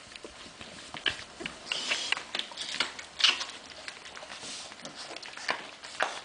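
Newborn Hungarian vizsla puppies nursing from their mother: irregular small suckling smacks and clicks, with a brief high squeak about two seconds in.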